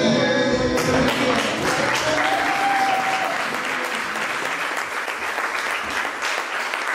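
An audience applauding, a dense patter of many people clapping. It starts as the song's music stops about a second in and slowly dies down.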